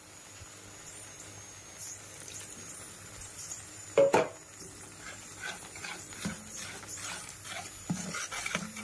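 Perforated metal skimmer stirring a thick white sauce in a pan, a quiet, steady scraping and squelching. About four seconds in there is one short, loud sharp sound.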